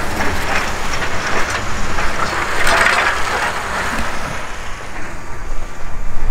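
Snow crunching and scraping in a dense crackle, over a steady low rumble of a vehicle. The crackle thins out about two-thirds of the way through.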